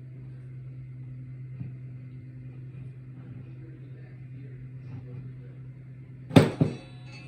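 Steady low hum, then near the end two sharp knocks in quick succession, about a fifth of a second apart, followed by brief ringing.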